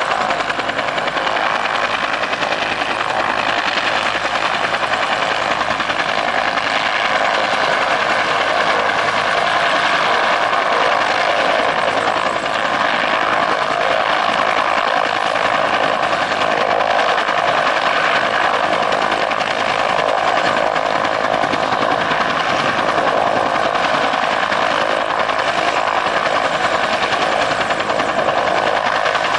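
Bell UH-1 Huey-type helicopter running on the ground with its two-bladed main rotor and tail rotor turning: a loud, steady turbine whine with several held tones over rotor noise.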